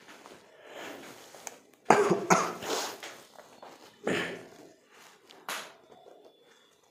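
A man coughing: a loud double cough about two seconds in, another cough about four seconds in, and a shorter, higher burst near the end.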